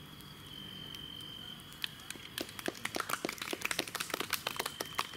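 A cricket trilling steadily in one high note. From about two seconds in, a run of sharp, irregular cracks and clicks, several a second, comes in louder than the cricket.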